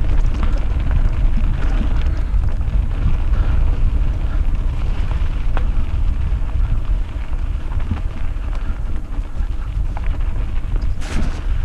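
Heavy wind rumble on the microphone of a mountain bike moving fast down a trail, with scattered clicks and rattles from the bike and trail and a sharper burst near the end.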